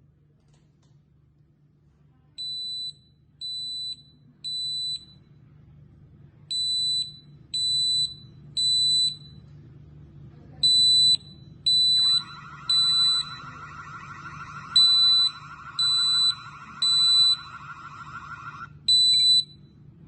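Tuya WiFi smoke detector's alarm sounding: high-pitched beeps in the temporal-three pattern, three half-second beeps then a pause, repeated four times and getting louder, with a fifth group starting near the end. A lower buzzing runs under the beeps for about six seconds in the second half.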